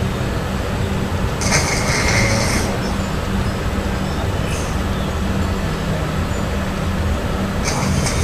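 Cat snoring in its sleep close to the microphone: a steady low rumble with a breathy hiss about every three seconds.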